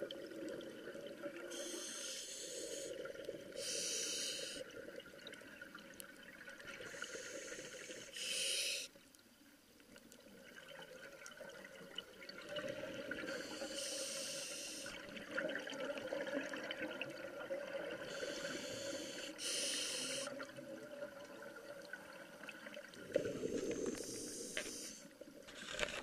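Scuba diver breathing underwater through a regulator: a burst of exhaled bubbles every few seconds over a steady low wash of water noise, with a short near-silent gap about nine seconds in.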